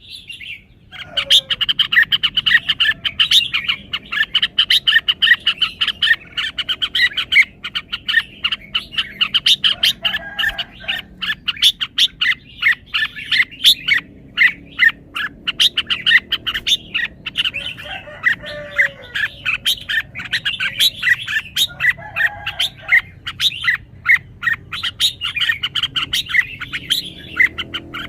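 Red-whiskered bulbul singing: a continuous stream of fast, high chirps, broken now and then by a few short lower notes.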